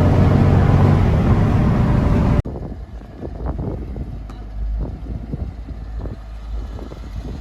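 A vehicle engine running steadily and loudly, with a low even hum. It cuts off abruptly after about two and a half seconds to a much quieter background of low rumble with scattered faint clicks and rustles.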